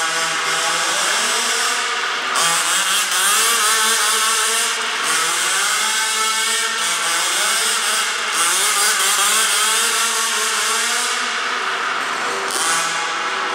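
Zenoah 29cc two-stroke engine with a Samba tuned pipe in an MCD W5 1/5-scale RC car, driving on and off the throttle. The pitch rises and falls again and again with a few strong runs up.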